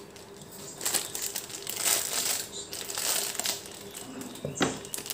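Thin clear plastic packaging crinkling and rustling in irregular bursts while small plastic clay plunger cutters are unwrapped, with a sharp click near the end.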